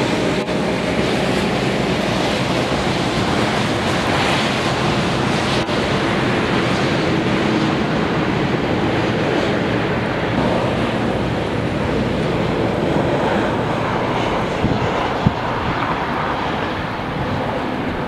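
Strong gusty wind rushing and buffeting the microphone in a steady roar of noise, with one brief sharp knock late on.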